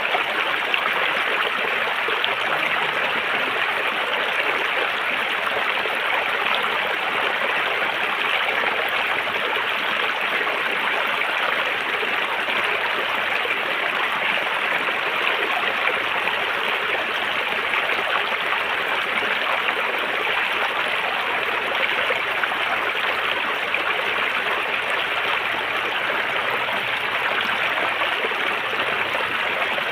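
River water flowing steadily over stones, an even rushing and babbling that does not change.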